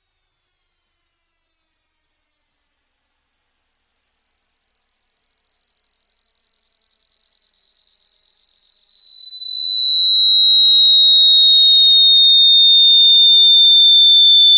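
Electronically generated pure test tone for a hearing test, held loud and even, gliding slowly downward in pitch from very high to high and levelling off toward the end.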